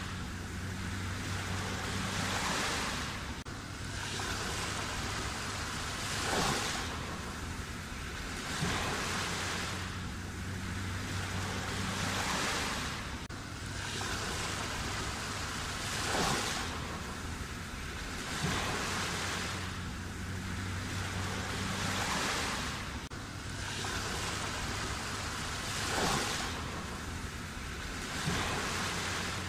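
Black Sea waves breaking and washing onto the shore: a steady hiss of surf that swells with a new wave about every two to three seconds.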